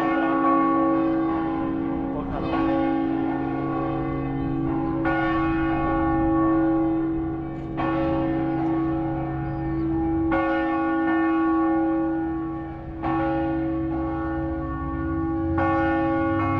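Church bells of Saluzzo Cathedral ringing close up in their tower, a fresh stroke about every two and a half seconds over long, overlapping ringing tones.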